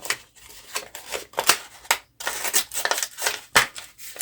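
Irregular clicks, scrapes and rattles of small metal parts handled by hand as a Benjamin 3600 air gun is taken apart and its valve worked out.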